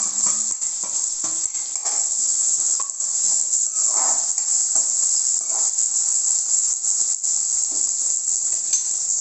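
Sliced onion, curry leaves, chana dal and garlic sizzling steadily in hot oil in an aluminium kadai, with a steel ladle scraping and knocking against the pan now and then as they are stirred.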